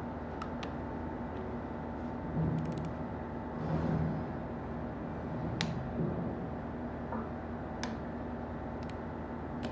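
A few light metallic clicks and taps of parts and hand tools being handled, spaced a second or two apart, over a steady hum.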